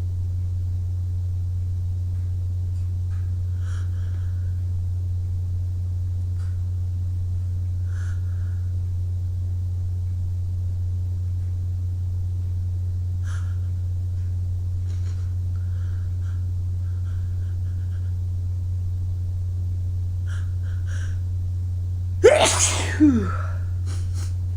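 A person sneezing once near the end, a sharp burst with a voiced tail that falls in pitch, over a steady low hum.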